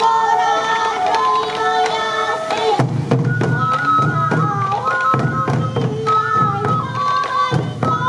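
Sansa odori festival music: waist-carried taiko drums beating under a high bamboo flute melody. The drumming grows heavier about three seconds in.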